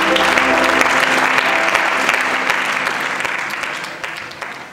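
Congregation applauding, the clapping dying away over the last second and a half.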